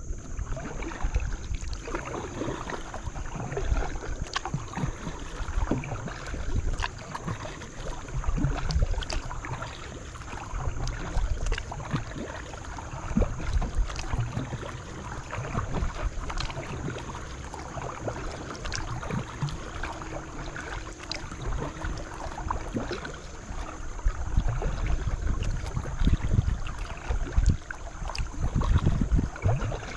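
Paddling a small boat on a creek: paddle strokes and water splashing and dripping, swelling every few seconds, with small knocks, and wind rumbling on the microphone.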